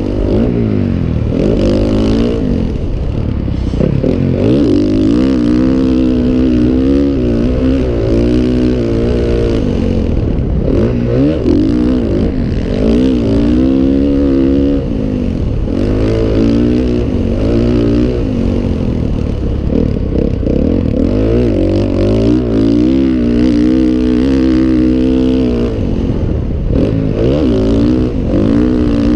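Motocross dirt bike engine revving hard, its pitch rising and falling over and over as the throttle is worked around the track, heard from the rider's helmet.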